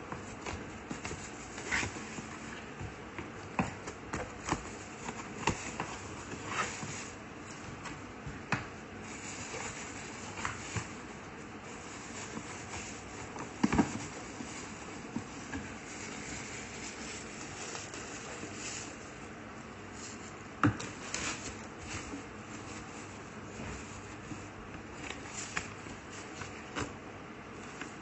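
Objects being handled by hand: irregular light clicks and knocks over a steady rustle, with the loudest knocks about fourteen and twenty-one seconds in. No motor is running.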